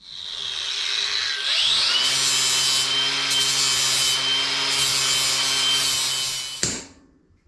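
Power grinder grinding through the pins of a steel roller chain to shorten it: a steady high whine and low hum over harsh metal-grinding noise. The pitch sags and climbs back in the first two seconds, and the tool stops suddenly near the end.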